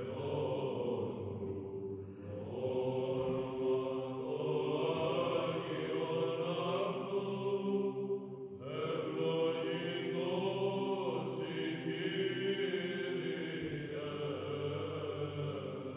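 Background music of slow sung chant: voices holding long notes, with a new phrase starting about halfway through.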